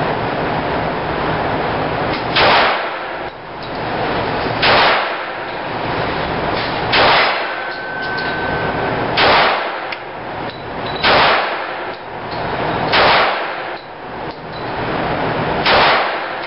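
Handgun shots fired one at a time at a steady slow pace, seven in all, roughly two seconds apart.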